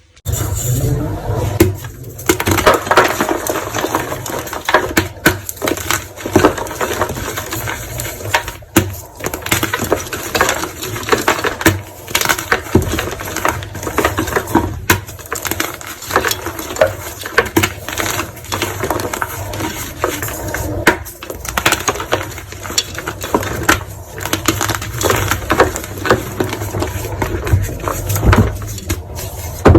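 Dense, continuous crunching and crackling, many small snaps close together, of a brittle material being crushed.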